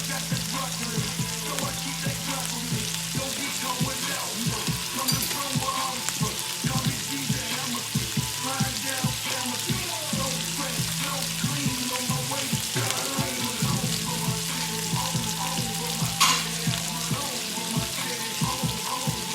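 Glazed chicken breasts sizzling in a hot pan: a steady, dense crackle of spattering fat and sauce.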